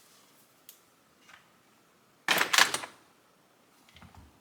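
Rummaging through tools and small parts on a workbench: a few light clicks, then a half-second burst of clattering about two seconds in, and soft knocks near the end.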